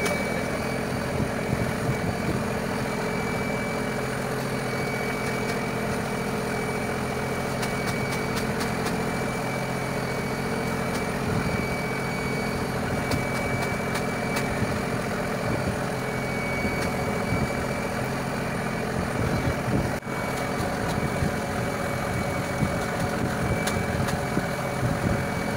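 A fishing boat's engine running steadily, an even mechanical hum that holds at one pitch.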